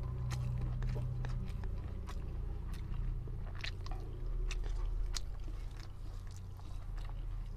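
Eating rice and black chana curry by hand: fingers mixing rice on a plate, and chewing with many small scattered clicks. A steady low hum runs underneath.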